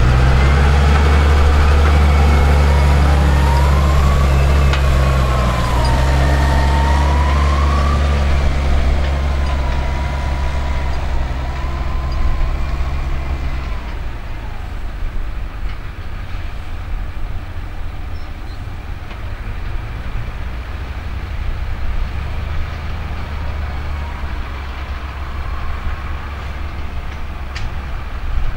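Heavy diesel engine running steadily with a deep hum, and a whine that swings up and down in pitch during the first several seconds. About halfway through the deep hum drops away to a quieter, even rumble.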